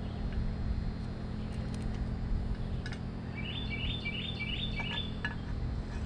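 A songbird sings a quick phrase of five repeated high notes about halfway through, over a steady low rumble and a few faint clicks.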